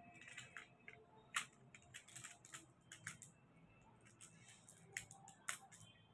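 Faint crinkling and crackling of metallic foil paper being handled, a scatter of small sharp crackles with the loudest about a second and a half in and two more near the end.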